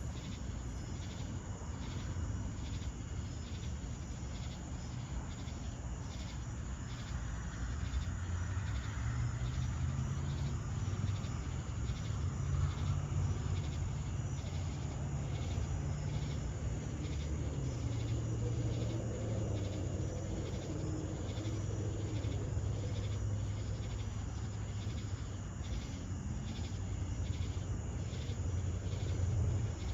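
Chorus of summer night insects, crickets and katydids, pulsing in a steady rhythm of about two beats a second, over a continuous low rumble.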